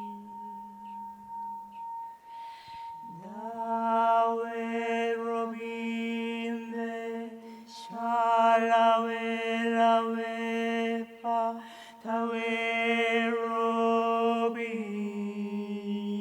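Voices singing long, steady chant-like notes over a low drone. About three seconds in a voice slides up into a held note, and the notes break off briefly a few times.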